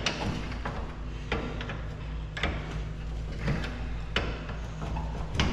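Wrench knocking and clinking against the truck's chassis parts as a bolt is worked: about five short, sharp knocks at uneven spacing, roughly a second apart, over a steady low hum.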